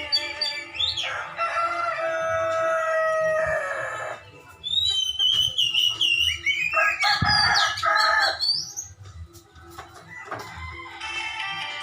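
A rooster crowing twice in long, drawn-out crows, with the quick, high whistled chirps of an oriental magpie-robin (kacer) singing between and after them.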